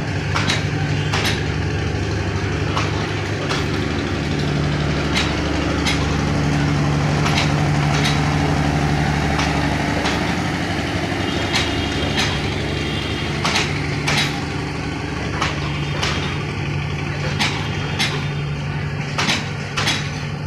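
Intercity passenger train rolling slowly past, its wheels clacking over the rail joints. The sharp clacks come about once a second, often in pairs, over a steady low engine hum.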